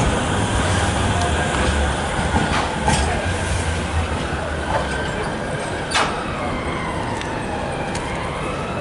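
Bombardier M5000 Metrolink tram running past at low speed on street track: a low rumble with a few sharp clicks of the wheels over rail joints, then a whine that dips and rises again in the second half.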